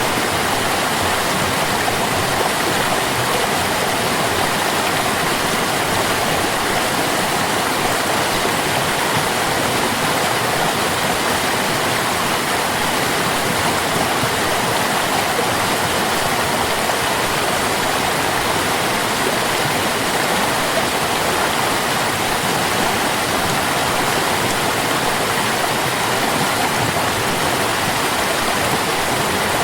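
Water stream running steadily: an even, unbroken rush of flowing water.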